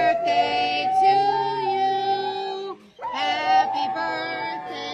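Pit bull–type dog howling in long, drawn-out notes that waver slightly in pitch, two howls with a short break about three seconds in. A second, lower voice holds a note alongside.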